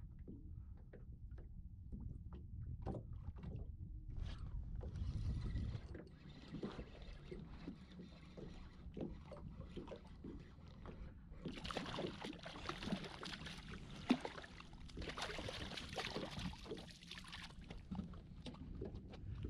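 Spinning reel being cranked as a hooked porgy is fought and brought in, with water lapping and knocking against a small boat's hull. A steadier hiss runs through the middle stretch of the retrieve, with small clicks and knocks throughout.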